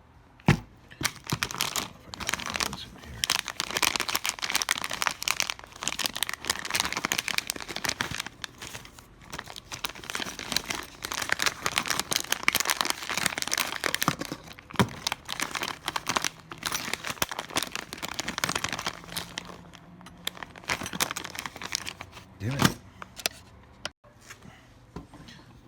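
Crinkling and rustling of thin plastic being handled close by, with a few sharp clicks: one about half a second in, one in the middle and one near the end.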